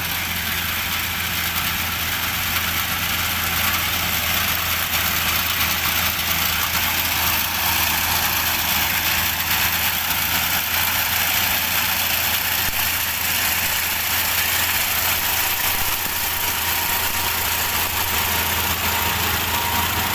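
Engine of a rice-harvesting machine running steadily, a constant low drone with an even hiss over it.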